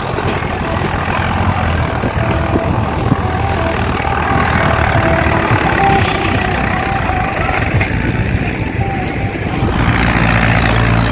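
Farm tractor's diesel engine running steadily, its low rumble growing heavier about ten seconds in.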